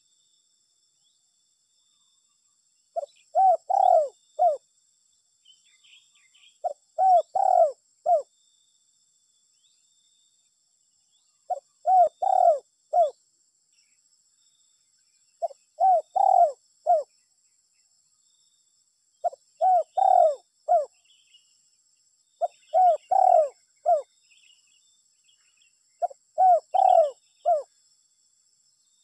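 Spotted dove (tekukur) cooing: seven phrases a few seconds apart, each a short note followed by three or four louder coos.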